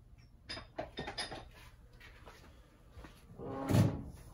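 Light metallic clicks and clinks of tools and shock parts being handled while the shock's inner tube is set into a shaft clamp, with a louder clatter about three and a half seconds in.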